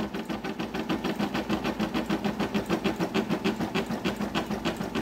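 Brother embroidery machine stitching out the letter B of an embroidery design, its needle running in a quick, even rhythm of several stitches a second over a steady motor hum.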